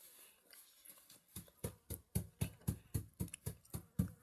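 A quick, even series of dull thumps, about four a second, starting about a second and a half in.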